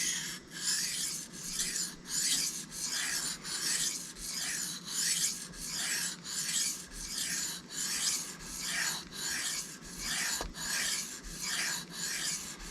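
A steel knife blade being stroked back and forth by hand across a Shapton Kuromaku whetstone, a steady rasping scrape repeated about one and a half times a second.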